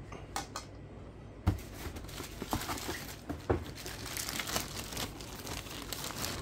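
Hands rummaging in a cardboard box, then a clear plastic bag with a paper leaflet inside crinkling as it is picked up and handled. Two sharp knocks stand out, about a second and a half in and again about three and a half seconds in.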